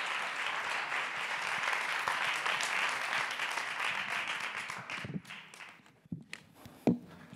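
Audience applauding, the applause dying away about five seconds in. A few soft knocks follow, then one loud thump near the end.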